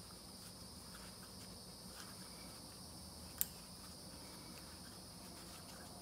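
Quiet handwork on a brake caliper: gloved fingers seating the rubber dust boot around the caliper piston, with one sharp click a little over three seconds in and a few faint ticks. A faint steady high-pitched tone and a low hum sit underneath.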